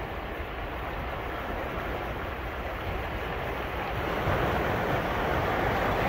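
Surf washing onto a beach, a steady rush that swells louder about four seconds in, with wind rumbling on the microphone.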